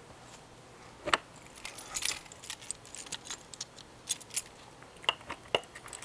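A bunch of keys jingling in hand: scattered light metallic clinks throughout, with a sharper click about a second in.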